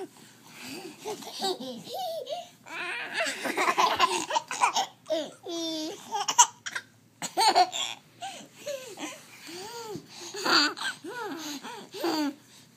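Baby laughing in many short bursts, with a quick run of pulsed laughter about halfway through.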